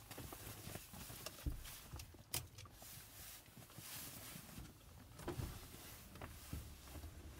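Small handling sounds inside a parked small van: a backpack and jacket rustling, with a few sharp clicks and knocks spread out, as the driver's door is opened to get out.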